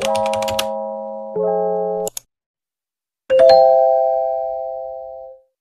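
Intro music and sound effects: two held synthesizer chords, the first with a quick run of keyboard-typing clicks over its first half second, then a short pause and a single bright chime that rings down over about two seconds.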